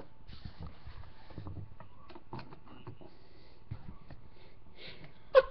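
Plastic trading-card cases being handled and set down on a playmat: scattered soft clicks, taps and rustles. A short loud vocal sound comes in at the very end.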